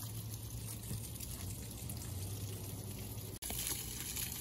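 Garden hose running, water splashing steadily over a headless iguana carcass to rinse out the blood. The sound drops out for an instant about three and a half seconds in.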